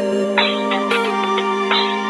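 Background music of held notes with no drum beat.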